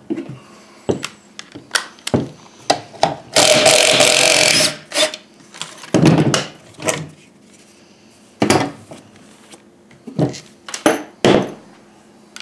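Knocks and clatter of a plastic car cooling-fan blade and its motor bracket being handled and taken apart on a workbench. A few seconds in there is a continuous noisy burst lasting about a second and a half.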